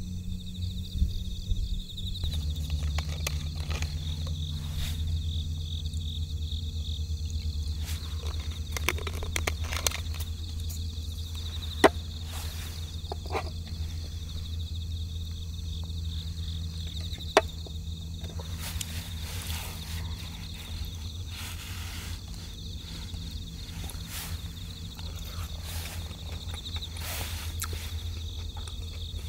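Camp cookware and a spoon being handled at a table, with light scrapes and knocks and two sharp clinks about twelve and seventeen seconds in. Underneath, insects chirp steadily and a low rumble runs throughout.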